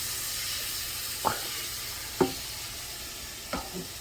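Cubed beef sizzling steadily in a frying pan while it is stirred, with three sharp knocks of the stirring utensil against the pan.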